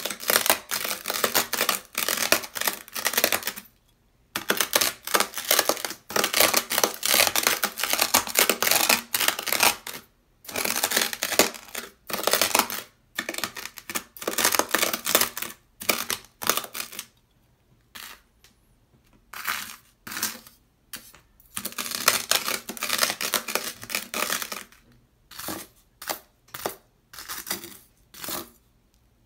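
A white ceramic knife blade scraping and pressing through coarse dry beach sand on sandpaper, making loud gritty crunches. The crunching comes in runs of strokes a second or two long, broken by short pauses, with scattered short single crunches in between.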